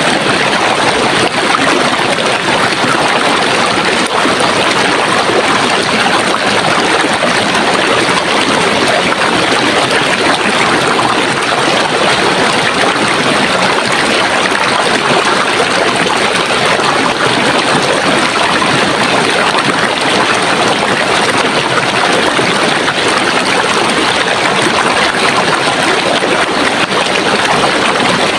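Running water from a stream, a steady babbling rush that does not change.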